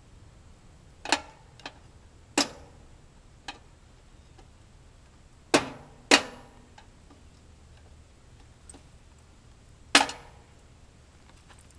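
Five loud, sharp knocks and clanks, irregularly spaced and each with a short ring, with a few fainter ticks between them.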